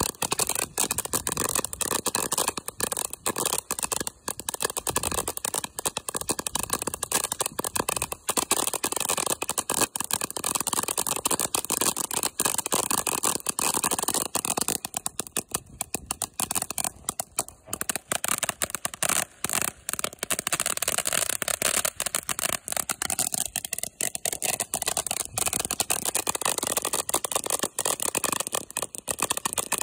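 Ground fountain firework burning: a steady hiss thick with rapid crackling from its spark shower, starting suddenly as it catches and running on without a break.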